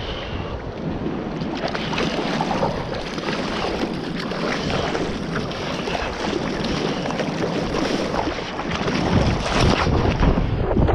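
Seawater sloshing and splashing against a surfboard and its nose-mounted camera, with wind buffeting the microphone. The splashing and wind rumble grow louder near the end as spray flies over the board.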